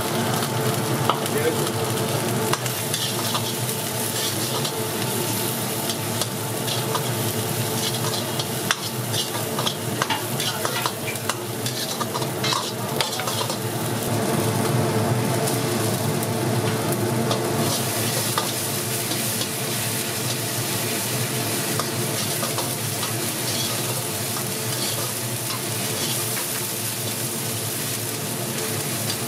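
Food frying and sizzling in a large pan for chicken biryani while a metal ladle stirs and scrapes it. There are frequent clinks and scrapes in the first half, then mostly steady sizzling.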